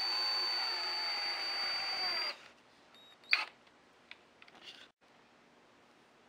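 Cordless drill driving a screw into a wooden frame: the motor whines for about two seconds, sagging slightly in pitch under load, then stops. A single short knock follows a second later.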